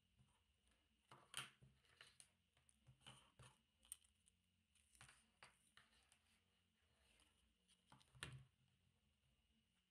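Faint clicks, taps and rubbing of 3D-printed plastic parts handled and pressed together by hand, an irregular scatter of small knocks, the loudest about a second in and again near the end, over a faint steady hum.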